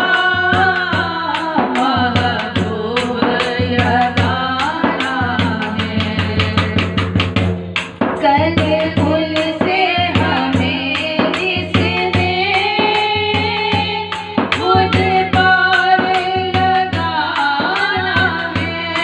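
Two women singing an Urdu naat, a devotional chant in praise of the Prophet, over an even, steady percussion beat.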